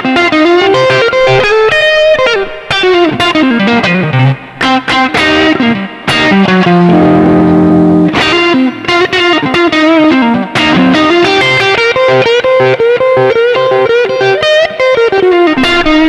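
Tokai Goldstar Sound Stratocaster-style electric guitar on its neck single-coil pickup, played through a Roland Cube 30 amp's overdrive channel and recorded direct. Quick single-note lead runs, with a chord left ringing for about two seconds near the middle.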